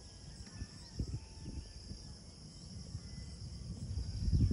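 Steady high-pitched drone of insects, with low wind rumble on the microphone that swells near the end.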